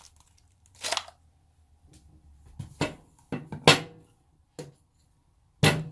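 Several separate sharp clicks and knocks of hard plastic cordless-tool bodies and batteries being handled and set down, the loudest a little past halfway.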